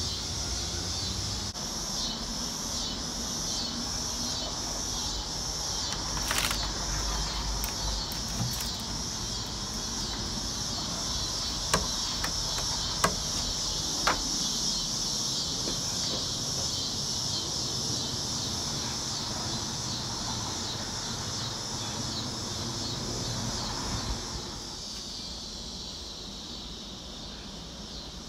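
A steady, high-pitched, evenly pulsing drone of an insect chorus that fades near the end, with a few sharp taps and clicks about halfway through.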